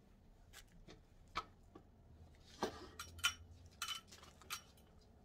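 A few scattered light clicks and small clinks, some with a brief ring, from handling objects close by, at irregular intervals.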